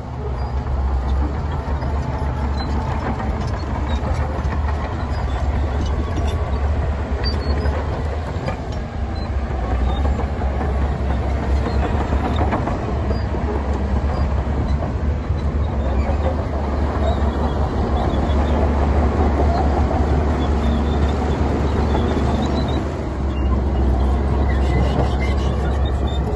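Heavy diesel earthmoving machinery running steadily, a loud low engine drone with continuous rattling and clatter.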